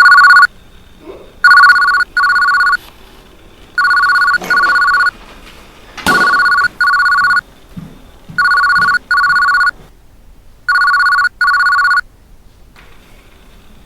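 Telephone ringing in a double-ring cadence, each ring a pair of short electronic tone bursts, repeating about every two and a half seconds. It rings six times, then stops about two seconds before the end.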